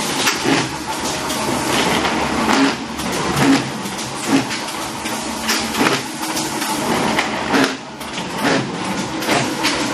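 Corrugated-cardboard boxmaker running as cardboard blanks feed along its conveyor: a steady mechanical rattle with frequent, irregular clacks.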